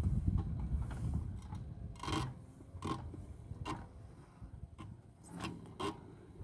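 Footsteps crunching on dry grass and stubble, several steps about a second apart. A low rumble fades away in the first couple of seconds.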